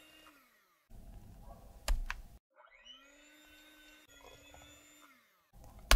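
Electric hand mixer beating batter in a stainless steel bowl. It runs with a steady whine, winds down and stops, then starts again with a rising whine. Between runs there are short rustling pauses, each with a sharp clink, about two seconds in and again at the end.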